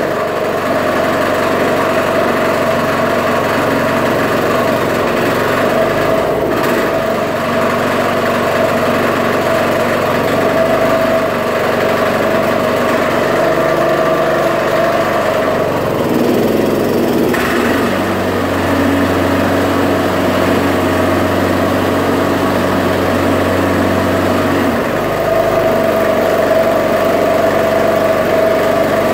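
Gas walk-behind lawnmower engine running steadily just after its first pull-start of the season. Its note changes for several seconds past the middle, then settles back.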